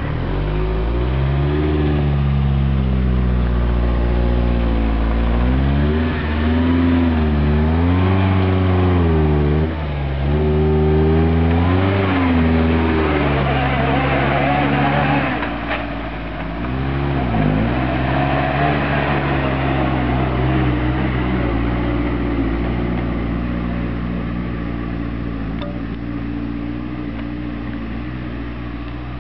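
Small open-topped 4x4 off-roader's engine being driven off-road, its revs rising and falling repeatedly for the first half or so, then running more steadily and slowly fading toward the end.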